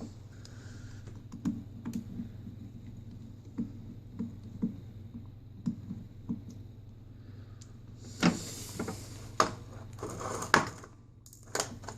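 Small clicks and taps of small hand tools working on a smartphone's internal parts during disassembly, with a run of louder sharp clacks about eight to ten seconds in. A steady low hum runs underneath.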